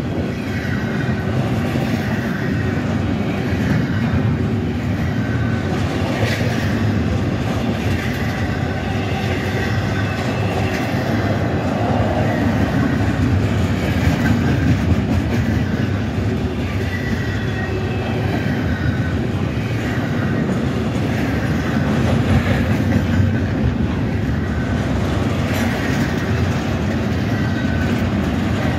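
Double-stack intermodal freight train rolling steadily past: a continuous rumble of railcar wheels on the rails with clickety-clack over the joints. Brief high-pitched tones come and go throughout.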